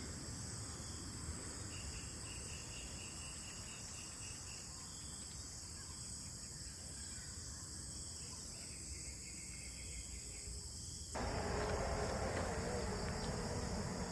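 Insects buzzing steadily at a high pitch, with a short run of quick, evenly pulsed chirps a couple of seconds in. About eleven seconds in the sound cuts abruptly to a louder, fuller outdoor background.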